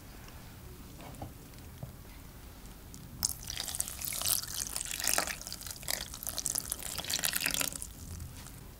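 Boiled-potato water poured from a glass measuring jug into a glass bowl of mashed potato, splashing and trickling for about four and a half seconds. The pour starts about three seconds in and stops shortly before the end.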